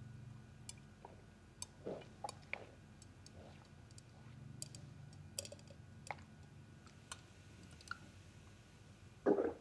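A person gulping down a large glass of creamy drink in one long go: faint swallowing with scattered small clicks of the throat and mouth. A brief louder sound comes near the end.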